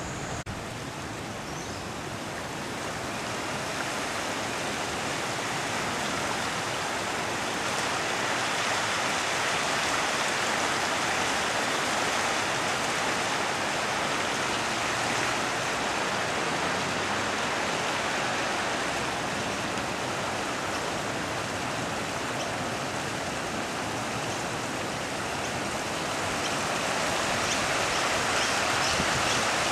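Fast-flowing floodwater from the swollen river rushing steadily, a constant even noise that grows a little louder over the first few seconds.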